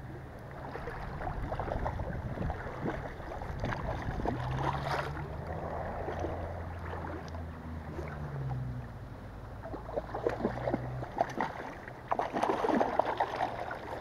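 Water sloshing and splashing around a hooked Atlantic salmon being played close in on a spinning rod, over a low steady rumble. Sharper, choppy splashes come in a run over the last few seconds as the fish starts to thrash.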